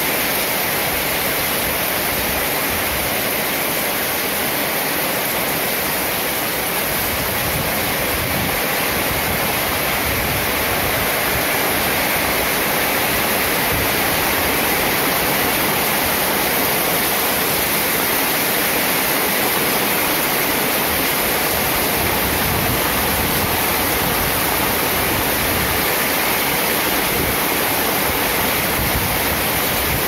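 Heavy rain falling, a steady, even hiss.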